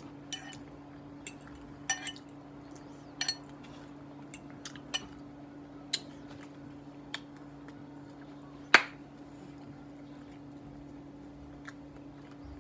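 A metal fork clinking and scraping against a glass baking dish while eating, in scattered short clicks, the loudest a single sharp clink about nine seconds in. A steady low hum runs underneath.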